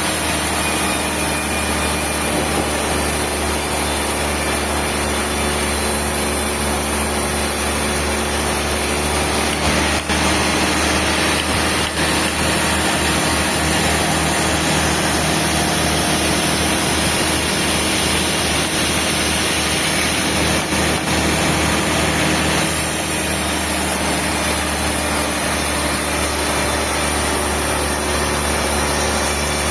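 Sawmill machinery running steadily, a continuous mechanical drone with a few steady hums, its upper hiss shifting about a third of the way through and again near the end.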